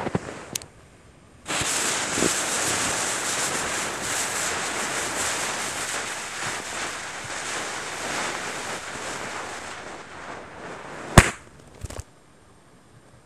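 Visco fuse of a homemade firecracker sizzling steadily for about nine seconds after it catches, then the firecracker going off with one sharp bang inside snow, followed by a short crack.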